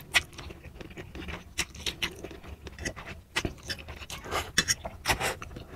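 A person slurping and chewing spicy fried instant noodles close to the microphone, with quick, irregular wet mouth sounds and short puffs of breath through pursed lips against the chilli heat.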